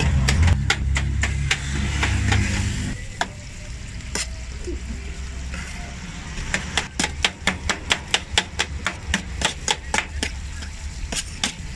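Steel knife and fork clicking and scraping against a stainless steel steamer pan as meat is chopped and turned in it, with quick clicks coming several a second in the second half. A low rumble sounds under the first three seconds, then stops.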